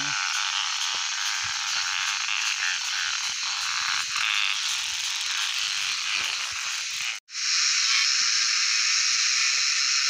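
Cicadas buzzing in a loud, steady, high chorus, with light handling rustles beneath. The sound drops out for an instant about seven seconds in.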